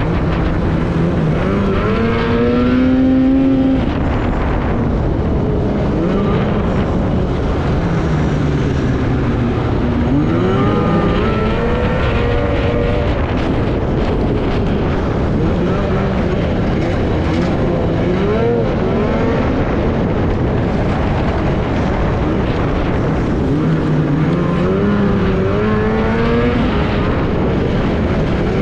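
Snowmobile engine running under the rider, its pitch rising and easing off again several times as the throttle is worked along the trail, over a steady rush of track and wind noise.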